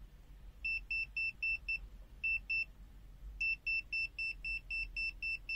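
UNI-T UT256 clamp meter's non-contact voltage detector beeping through its buzzer, short high-pitched beeps about four a second: five, a pause, two more, then a continuous run from about three seconds in. The beeping signals that the meter senses a live conductor.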